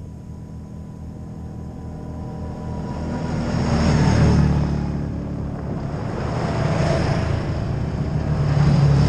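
Several side-by-side UTVs driving past one after another on a gravel road. The engine drone and tyre noise swell and fade three times, loudest about four seconds in, again near seven seconds and near the end.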